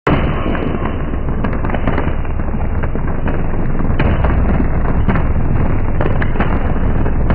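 High-voltage power line arcing at a transmission tower in a short-circuit fault: the arc starts abruptly and keeps going, a loud, steady crackling with sharp snaps throughout over a low electrical hum.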